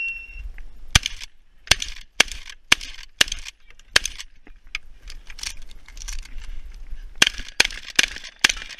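A shot timer's short start beep, then a fast string of 12-gauge shotgun shots, about one every half second, with a lull in the middle before another quick run of shots near the end.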